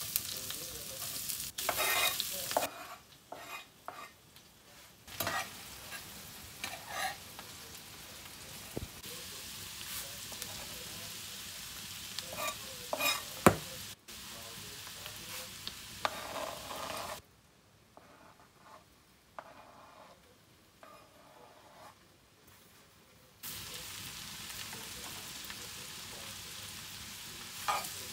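Chopped onion and garlic sizzling in hot fat in a frying pan, stirred and scraped with a metal spoon, with scattered clicks and knocks of the spoon and knife. The sizzle drops away for several seconds in the second half, then comes back.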